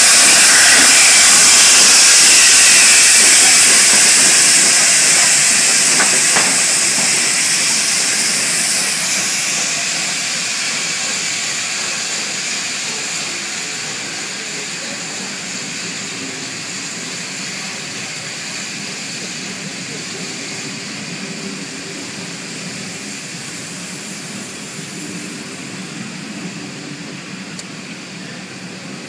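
LNER A4 Pacific steam locomotive Bittern hissing loudly as steam escapes. The hiss eases off over the first half, leaving a lower, steady rumble.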